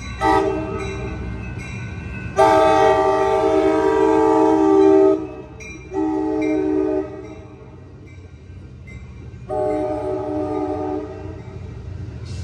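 Amtrak California cab car 8302's multi-note horn sounds four blasts in a long, long, short, long pattern, the standard warning for a grade crossing, as the train moves slowly along street-running track. A low steady rumble of the bilevel passenger cars rolling by runs underneath.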